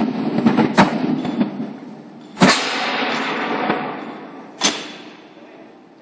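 Four sharp bangs with smaller knocks and rattles among them: at the start, just under a second in, about two and a half seconds in and just under five seconds in. Each leaves a noisy, echoing tail that dies away.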